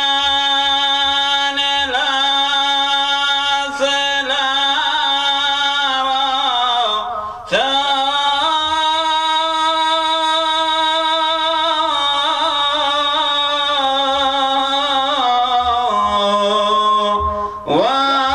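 A male voice chanting a Syriac church hymn in long, ornamented held notes, breaking off briefly for breath about seven seconds in and again near the end.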